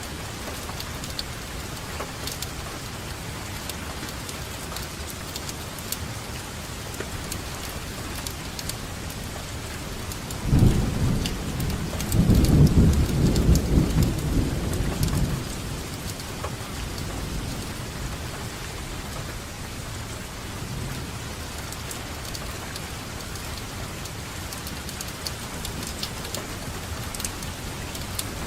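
Steady rainfall with scattered drops pattering, and a roll of thunder about ten seconds in: a low rumble that swells for a few seconds and then fades back under the rain.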